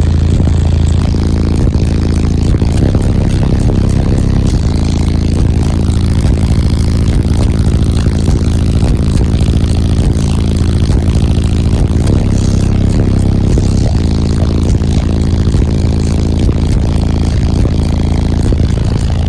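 Car audio subwoofers playing a bass demo at very high volume, heard inside the truck cab: a deep bass note held throughout, with buzzing overtones above it that shift every fraction of a second.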